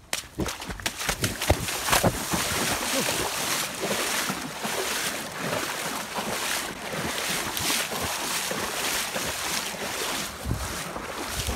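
Bare feet splashing repeatedly through a shallow muddy puddle: a busy run of splashes and slaps.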